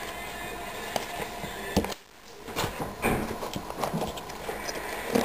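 Black fabric carrying pouch being handled and turned over on a wooden table: rustling with light irregular knocks, starting about two and a half seconds in after a steady faint hiss.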